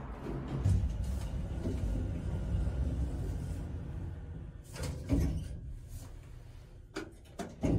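Elevator doors sliding shut over a steady low hum, with a few clicks and knocks as they close about five seconds in and more knocks near the end.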